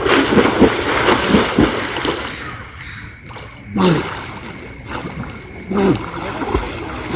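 Water splashing and sloshing close to the microphone as a person swims in deep floodwater, busiest in the first two seconds, with two short gurgling splashes later on.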